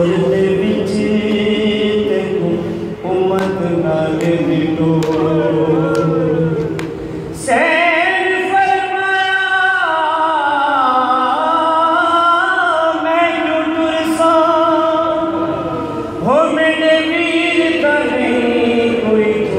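Male reciter singing a Punjabi noha, a Muharram lament, in long drawn-out melodic phrases. A new, louder phrase begins about seven seconds in and another near the end.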